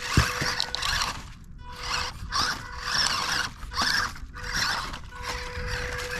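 Small RC crawler truck's electric motor and gears whining in short throttle bursts, about one a second, over a steady thin whine, with a sharp knock just after the start.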